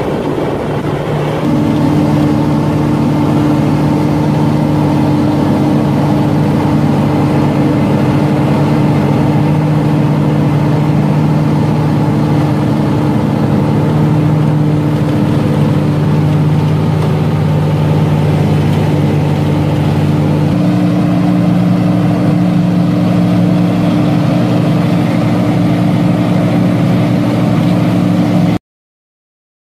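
Diesel engine and hydraulics of a slipform curb machine running steadily while it extrudes a concrete curb. The drone's note shifts slightly about twenty seconds in, and the sound cuts off abruptly near the end.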